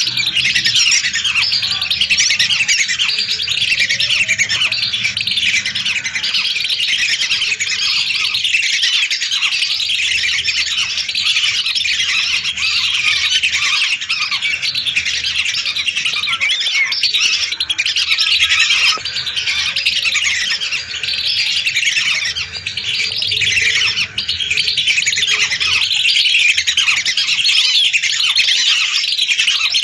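A large flock of lesser whistling ducks calling together: a loud, dense chorus of many overlapping short high calls.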